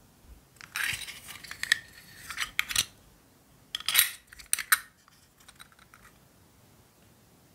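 Small hard-plastic miniature parts clicking and scraping in two bursts of handling. The second burst comes as a clear plastic sliding door is pushed along the track of a miniature TV cabinet, followed by a few faint ticks.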